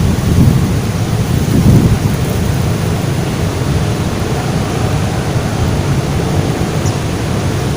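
Wind buffeting the microphone: a loud, continuous low rumble that swells in gusts about half a second and nearly two seconds in.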